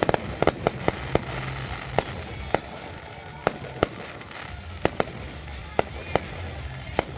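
Fireworks going off: sharp bangs and cracks, a quick cluster at the start, then single reports at uneven gaps of about half a second to a second.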